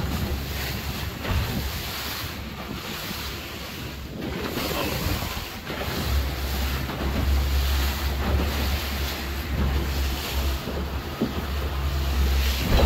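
Wind buffeting the microphone and water rushing past the hull of a boat underway at speed, over the steady low drone of its Suzuki 175 four-stroke outboard.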